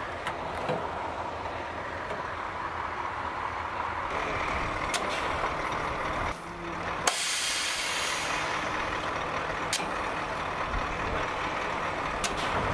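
A motor vehicle's engine running steadily, with a sudden hiss of released air about seven seconds in that fades over a second or two.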